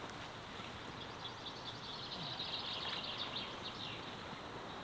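Steady outdoor background hiss with a small bird singing a run of short, high chirps through the middle.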